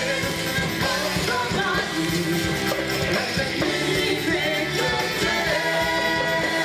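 Upbeat stage-show music with singing and a steady beat.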